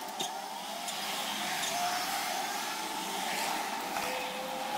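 A car driving slowly past on a cobblestone street: steady engine and tyre noise.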